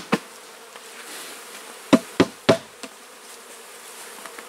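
Honeybees buzzing steadily, with sharp knocks from a plastic bucket being rapped to shake the brushed-off bees out in front of the hive: one knock at the start and three in quick succession about two seconds in.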